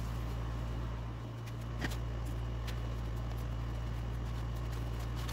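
Steady low machine hum, with a couple of faint taps about two seconds in as damp cement clay is worked in a plastic mixing bowl.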